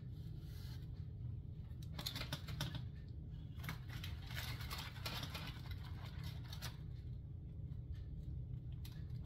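Kitchen handling noises while serving food: irregular rustles and light clicks as a silicone spatula scoops baked vegetables from a foil-and-parchment packet onto a ceramic plate, over a steady low hum.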